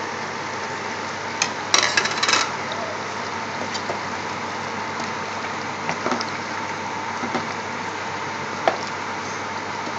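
Curry simmering in a metal pot with a steady bubbling hiss, while a spoon stirs it, knocking and scraping against the pot. The busiest clatter comes around two seconds in, with a few single knocks later.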